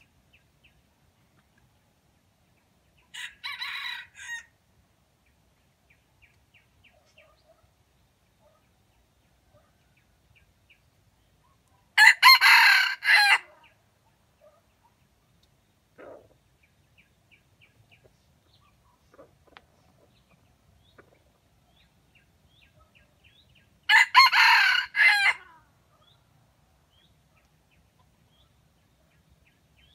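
A red junglefowl rooster crowing three times, each crow short and clipped. The first, about three seconds in, is fainter; the other two are louder and come about twelve seconds apart. Faint soft clucks can be heard in between.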